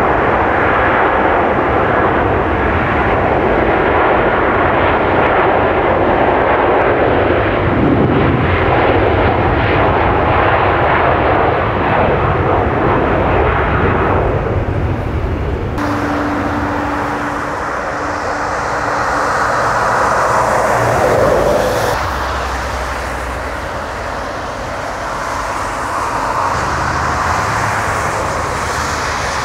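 Jet engines of a twin-engine Airbus A330 at takeoff power, a steady, loud roar. About halfway through the sound changes abruptly and a steady whine runs for a few seconds. The roar dips, then swells again near the end.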